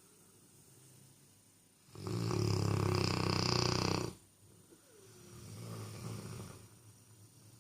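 A sleeping Cane Corso dog snoring: one loud snore lasting about two seconds, starting about two seconds in, then a softer, quieter snore about a second later.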